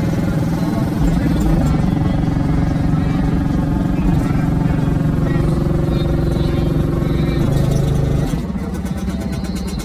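Bass-heavy music playing loudly through a semi truck's car audio system with eight Sundown X-15 subwoofers, heard from outside the cab. Deep held bass notes change every second or two, and the level drops somewhat near the end.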